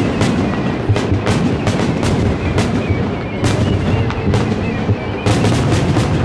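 Aerial firework shells bursting in rapid succession: many sharp bangs over a continuous low rumble, with a dense cluster of bangs about five seconds in.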